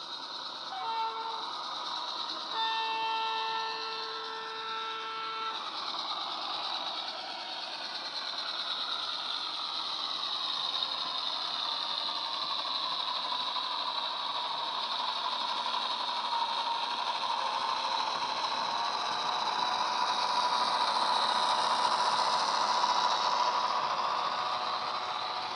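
Sound decoder and speaker in a model Irish 121 class diesel locomotive: a short horn toot about a second in, then a longer horn blast of about three seconds. After that the recorded diesel engine sound runs under load, its pitch gliding, and grows louder as the train passes close near the end.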